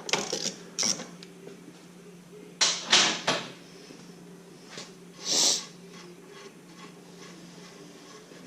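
Scattered metal clicks and clanks of Ford 9-inch differential parts being handled during a pinion shim change, with a cluster of clatter about three seconds in and a steady low hum beneath. A short hiss comes about five seconds in.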